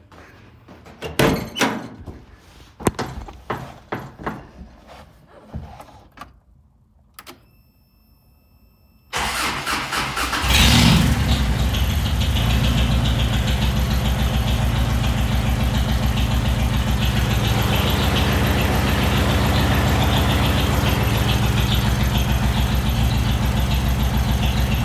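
A few scattered knocks and clicks, then about nine seconds in the 1984 Toyota pickup's engine cranks briefly, catches with a short flare in revs, and settles into a steady idle.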